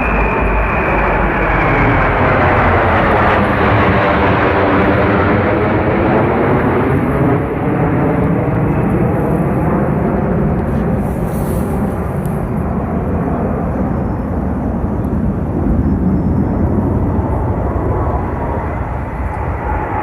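Military aircraft of a parade flypast passing overhead: a loud, steady engine rush with a tone that falls slightly near the start.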